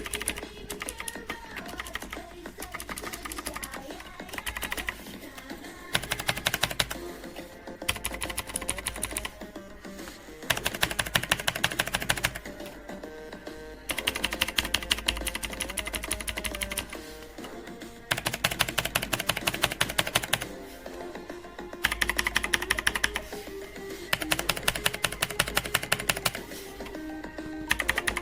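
Rapid typing on a mechanical keyboard, in bursts of fast key clicks a couple of seconds long with short pauses between, over background music.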